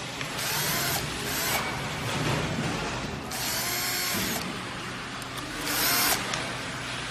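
Cordless drill-driver backing out screws from a scooter's wheel mount, running in about four short bursts. Its motor pitch rises and falls with each burst, and the loudest comes about six seconds in.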